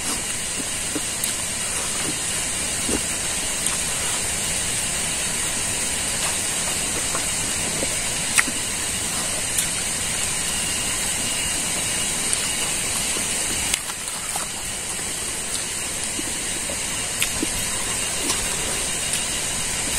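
A steady hiss with faint, scattered clicks and smacks of someone eating rice and meat with their fingers and chewing.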